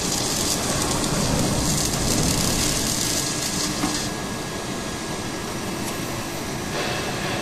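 Twin-torch automated beam welding machine running a weld, a steady hiss over a machine hum. The high hiss drops away about four seconds in, leaving the lower hum.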